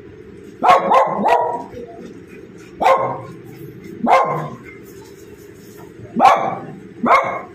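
A dog barking: a quick run of three barks about a second in, then four single barks spaced one to two seconds apart.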